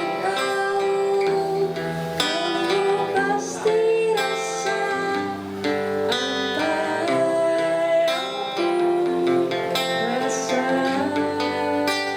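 Live acoustic band music: plucked and strummed guitars under a gliding melody line.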